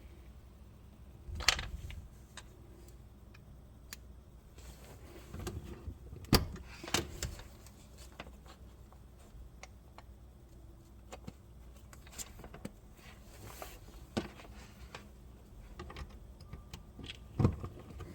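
Scattered sharp clicks and knocks of parts being handled, a few seconds apart, over a low steady hum.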